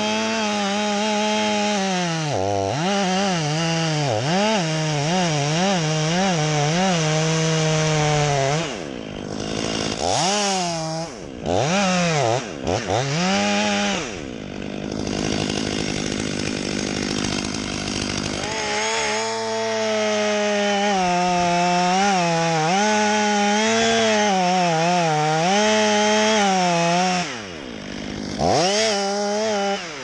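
Chainsaw cutting through wood, its pitch wavering as the chain loads and frees in the cut. Twice it drops off and is given a few short revs before cutting again.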